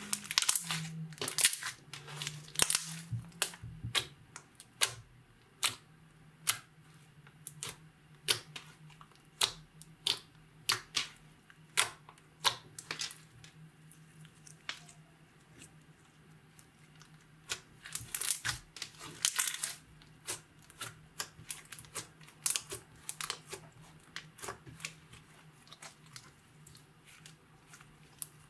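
Slime being kneaded, stretched and pressed by hand, giving off irregular sticky pops and clicks, a few a second, thicker near the start and again a little past the middle.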